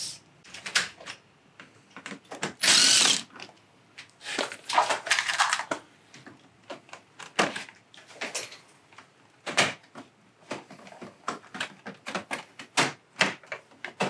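Plastic cover parts of a wall-mounted air conditioner's indoor unit being unclipped and pulled free by hand: a run of sharp clicks and knocks, with two longer rasping bursts about three and five seconds in.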